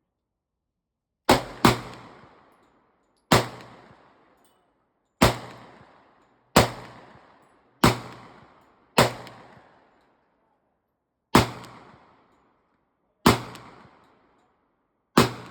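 Ten gunshots fired one at a time at an uneven pace, about one to two seconds apart with the first two close together, each shot trailing off in an echo.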